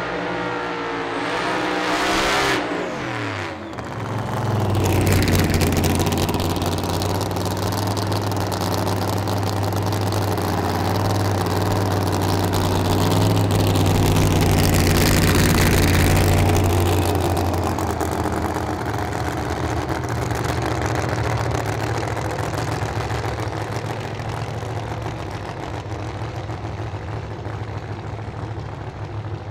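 Roots-supercharged 511 Hemi V8 of a 1970 Chevelle doorslammer. The revs fall in sweeping pitch over the first few seconds, then after a brief break the engine runs at a steady speed and slowly fades over the second half.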